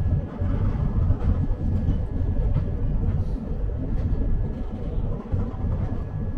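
Passenger train running on the rails: a steady low rumble with faint scattered clicks.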